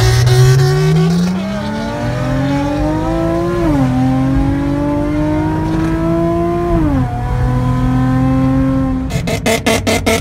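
Nissan 350Z V6 with catless test pipes and a Tomei single-exit exhaust, accelerating hard through the gears. The exhaust note climbs in pitch and drops at each upshift, three times, then holds steady. Near the end a rapid fluttering pulse takes over.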